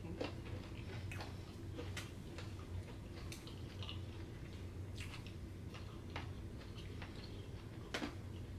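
People eating: scattered sharp clicks and smacks of chewing and handling food, irregular, about one or two a second, over a steady low hum.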